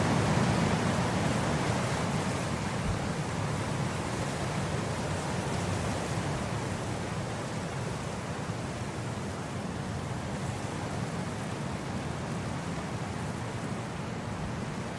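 Wind blowing across grass, a steady rushing noise that eases gradually after a stronger gust at the start.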